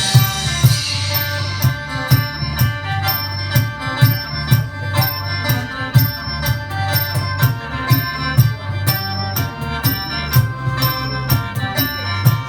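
Isan folk music led by a khaen, the bamboo free-reed mouth organ, playing held chords over a drone, with a steady, even drum beat underneath.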